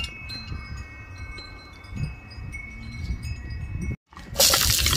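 Wind chimes ringing, several long overlapping notes. After a short break about four seconds in, chopped shallots and garlic drop into hot oil in a wok and start sizzling, much louder than the chimes.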